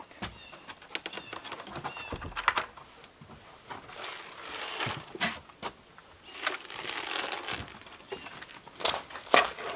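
A wooden cabin door closing with a series of latch clicks and knocks, then soft rustling as gear is picked up. Footsteps and a dog's paws knock on a plank porch deck, with a louder knock near the end.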